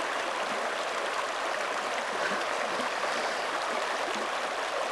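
Shallow creek running over a rocky bed and around a boulder: a steady, even rush of flowing water.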